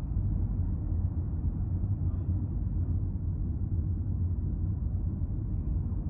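Steady low rumble of a car's tyres and engine at expressway speed, heard from inside the cabin.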